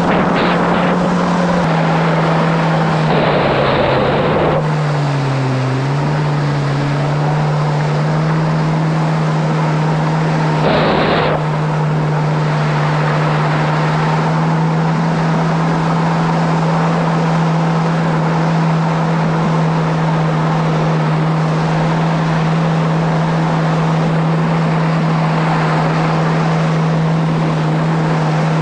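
A 2017 Kawasaki SX-R 1500 stand-up jet ski's four-stroke, four-cylinder engine is running under way at a steady pitch. The pitch dips and recovers about five seconds in. Water spray hisses in two brief rushes, about three seconds in and again about eleven seconds in as the ski carves a turn.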